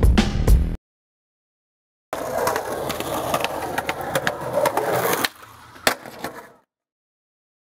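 Music cuts off within the first second; after a short silence, skateboard wheels roll over concrete with sharp clacks of the board, then quieten with one last clack and fade out.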